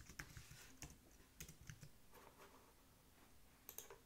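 Faint computer keyboard typing: a few quick keystrokes in the first second and a half, a pause, then a couple more clicks near the end.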